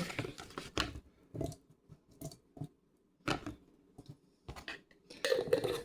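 Cucumber slices being put into a jar of vinegar brine: a string of light, irregular clicks and knocks, with a louder clatter near the end.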